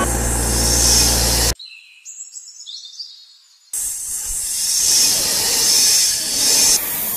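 Dubbed sound effects: a low engine rumble under a hiss cuts off abruptly about a second and a half in, followed by a quiet gap with faint high gliding chirps. A long steady hiss starts about four seconds in.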